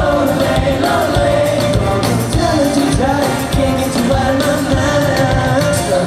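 Live pop music: a boy group singing into handheld microphones over a live band of drums, electric guitars and keyboard, played through a PA system.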